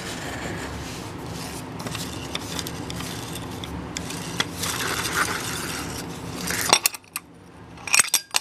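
Stihl FS90R string trimmer's bump-feed head being unscrewed by hand from its threaded arbor: a steady rubbing, scraping noise as it turns, then a few sharp clinks near the end as the head comes free.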